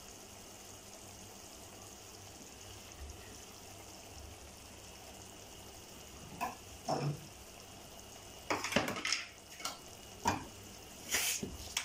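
Vegetables and green masala paste sizzling gently in a pressure cooker pot. From about six seconds in, a steel ladle knocks and scrapes against the pot several times.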